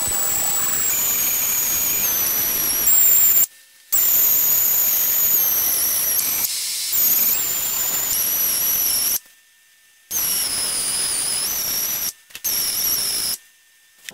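An air-powered pencil die grinder whines at a high pitch while porting the intake ports of a VW 1.8T 20-valve aluminium cylinder head. The whine wavers and dips in pitch, and it cuts out briefly four times before it starts up again.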